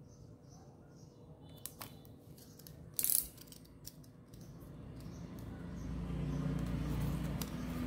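Shrink-wrapped cardboard toy box being handled, with a brief loud rustle about three seconds in; from about halfway, a metal blade scrapes and cuts along the box's plastic film wrap, a rough creaking scrape that grows louder and keeps going.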